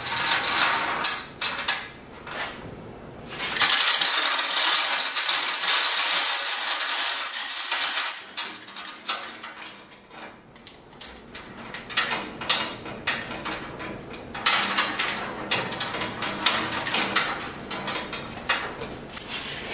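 Steel chain of a hand-operated chain hoist clinking and rattling as the hand chain is pulled to move a heavy lathe tailstock. About four seconds in the chain runs in a continuous rattle for about four seconds, then goes on in scattered clinks.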